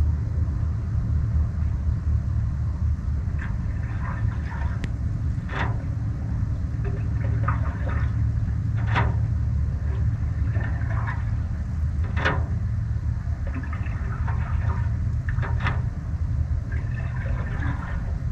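Wind buffeting the microphone as a steady low rumble, with canoe paddle strokes in the water about every three and a half seconds, each marked by a short sharp splash, and softer water sounds off the paddle between them.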